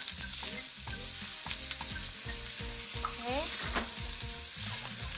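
Asparagus sizzling as it sautés in a hot nonstick frying pan, with a spatula stirring it and clicking against the pan.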